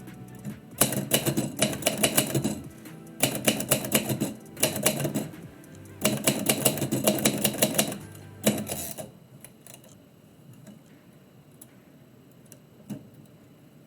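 Typewriter keys struck in quick runs, several flurries of rapid clacking, then thinning to occasional strokes after about nine seconds.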